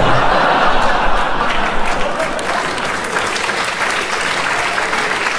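Audience applauding, loudest at the start and easing off a little.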